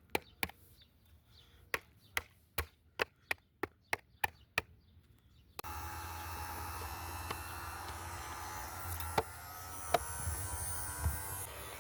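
About a dozen sharp knocks in an uneven rhythm. Then a robot vacuum's motor starts suddenly and runs with a steady hum and a high whine, with a couple of clicks over it.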